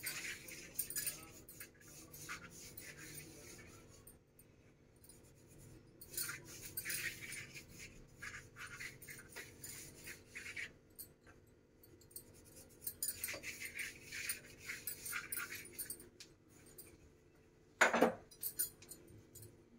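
Hand rubbing dry flour over a thin, ghee-greased sheet of rolled maida dough: soft scratchy swishing strokes in three spells, with a single sharp knock near the end.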